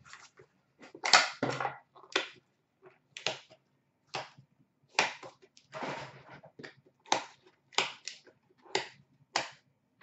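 Trading cards and foil card-pack wrappers being handled: a string of short, sharp snaps and crinkles, one or two a second, unevenly spaced.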